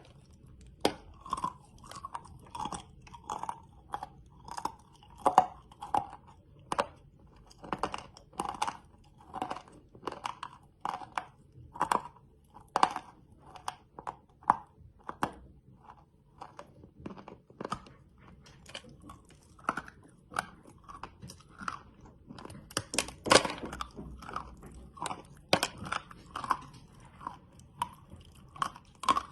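Close-up chewing and crunching of chalk candy: a steady run of crisp crunches, about one or two a second, with a louder burst of crunching about three-quarters of the way through.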